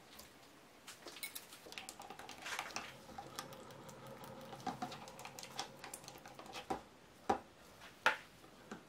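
Silicone spatula stirring soap batter in a plastic jug: light scraping and small clicks, then a few sharper knocks of utensils and jugs near the end.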